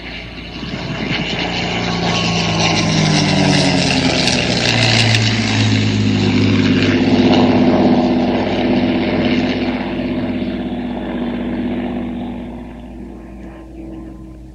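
Messerschmitt Bf 109E-3's Daimler-Benz DB 601 inverted V12 engine on a low, fast flyby. The engine drone swells, drops in pitch as the plane passes, then fades as it climbs away.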